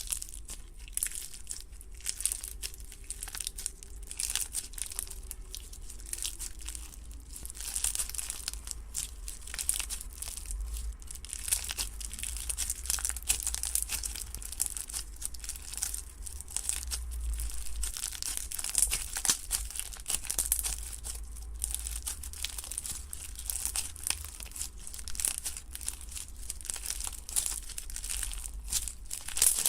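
Slime being squished and stretched by hand, giving a dense, irregular crackling and popping with a low handling rumble underneath.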